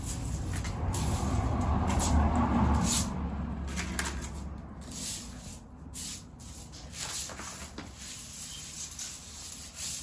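Short straw broom sweeping across a tiled floor in irregular scratchy strokes. A low rumble sits under the first three seconds.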